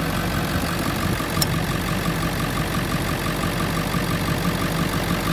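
Ford 7.3-litre Power Stroke V8 turbo-diesel idling steadily, heard close up in the open engine bay. It is a 209,000-mile engine that the seller describes as running great with no blow-by.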